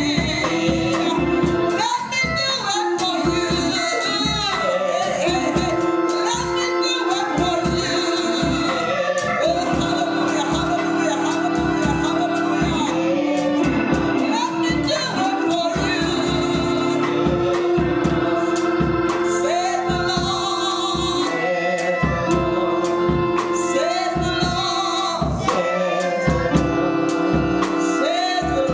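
Gospel praise and worship singing with instrumental backing: sung melody over long held notes and a steady beat.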